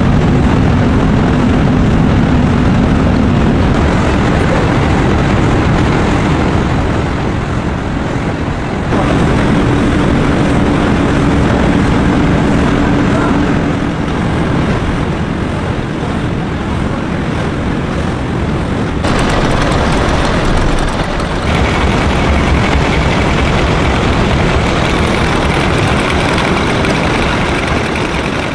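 Matchstick factory machinery running: a loud, steady mechanical din, with a low hum in places. The sound changes abruptly about a third of the way in and twice more past the middle, as one machine's noise gives way to another's.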